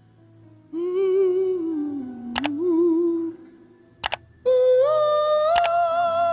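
A single voice humming a slow wordless melody, no words. First a low wavering note dips and comes back up. Then, after a short pause, a higher note rises slightly and is held. A few sharp clicks fall in between.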